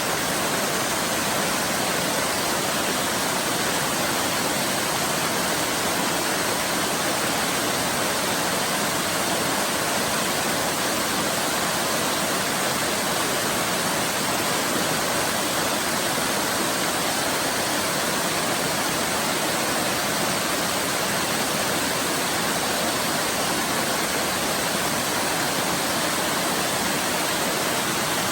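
Waterfall: water falling and splashing in a steady, even rush with no change.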